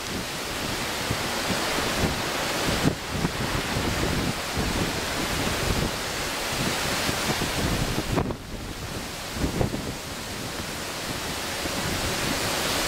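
Storm wind buffeting the microphone over rough sea rushing and breaking along a ship's hull, with a brief lull about eight seconds in.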